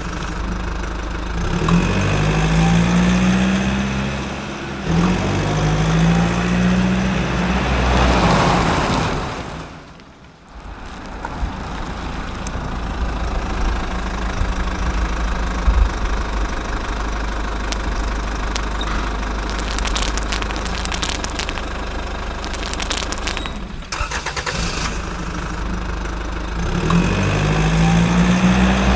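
Diesel engine of a truck or excavator running and revving, with its pitch rising and falling several times. It drops out briefly about a third of the way through, then runs on steadily.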